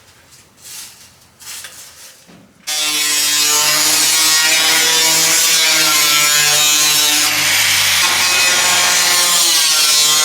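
A power tool cutting sheet-metal roofing starts abruptly about two and a half seconds in and runs steadily and loudly: a motor whine with the hiss of cutting over it.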